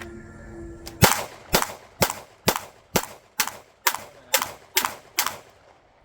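Ten pistol shots fired at an even pace of about two a second, starting about a second in: a timed shooting drill run against a shot timer, finished in about 5.9 seconds.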